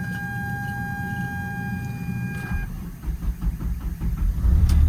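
A steady electronic warning tone from the truck's dash, with a low hum under it; the tone stops a little over halfway through. Then the starter cranks the Cummins 5.9 diesel, which catches near the end and settles into a loud, steady, low running sound.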